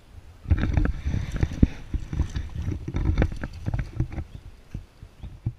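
Mountain bike rattling and clattering over a rough dirt trail, a dense run of irregular knocks from frame, chain and tyres over a low rumble, starting about half a second in.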